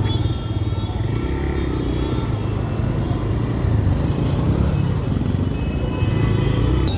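TVS Raider 125 motorcycle's single-cylinder engine running as the bike rides through city traffic, a steady low rumble with surrounding traffic noise.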